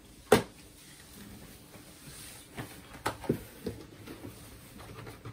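Board game boxes being handled: one sharp click about a third of a second in, then a few light taps and knocks against the box and table.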